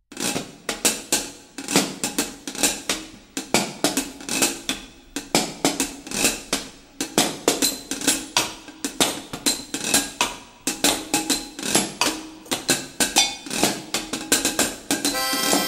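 Percussion-led band music: drums and a washboard struck with drumsticks in a steady beat of about two to three strikes a second. Near the end a sustained pitched instrument comes in over the beat.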